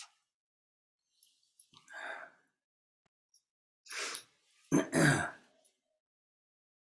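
A man sighing and clearing his throat in three short bursts, the last one the loudest.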